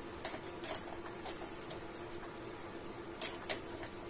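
A wrench clicking as it tightens the bolt on a battery terminal connector: light metallic clicks about every half second, then two sharper ones near the end, over a faint steady hum.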